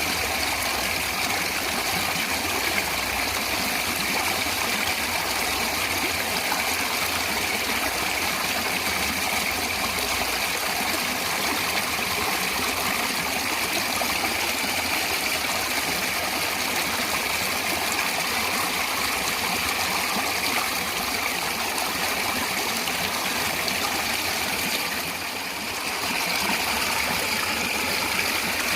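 Steady rush of running natural water, a stream or cascade flowing continuously, dipping briefly near the end.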